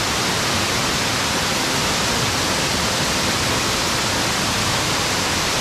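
Rushing water of a mountain creek cascade, a steady, even rush.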